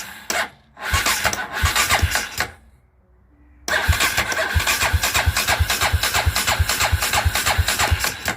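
Dinli DL901 450cc ATV engine being cranked over, chugging evenly at about five strokes a second without catching, stopping twice briefly between tries. It won't start because the magneto rotor's woodruff key is broken.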